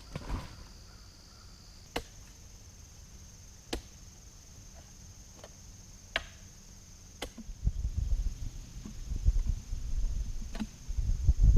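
Machete chopping dead brush: single sharp hits a second or two apart, then a louder low rumbling and rustling from about two thirds of the way in as the cut brush is handled.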